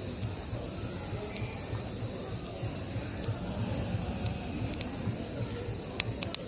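Steady high-pitched drone of cicadas in summer, with a low background rumble and a few sharp campfire crackles near the end.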